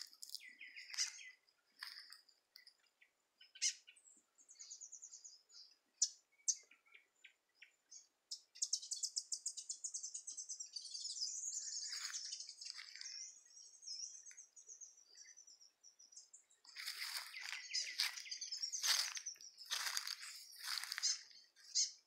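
Wild birds singing and calling: short high chirps throughout, a fast high trill about eight seconds in, and a run of louder calls near the end.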